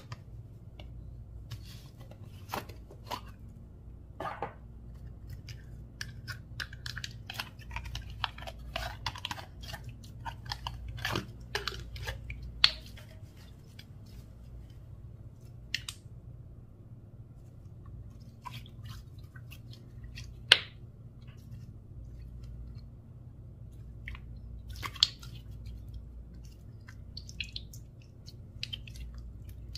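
Slime with mini balls mixed through it being squished and worked: irregular crunching crackles and small pops, thickest in the first half, with a few sharper single pops later on.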